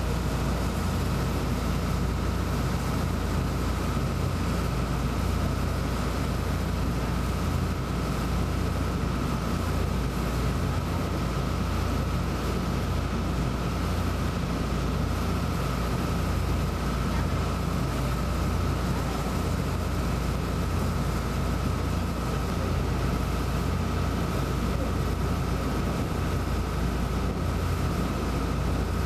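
A tour boat's engine droning steadily while underway, with water rushing along the hull and a thin, steady high whine over the low rumble.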